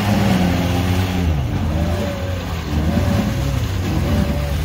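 Jeep Wrangler's engine revving hard as it churns through deep swamp mud, the revs rising and falling several times.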